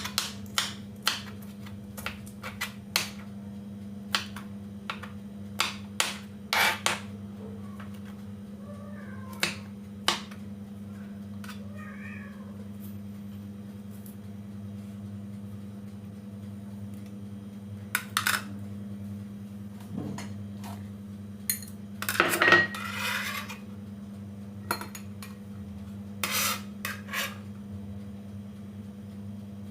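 Kitchen work: scattered knocks and clicks of utensils and dishes, with a louder clatter about 22 seconds in, over a steady low hum. A few faint wavering high calls come about 8 to 12 seconds in.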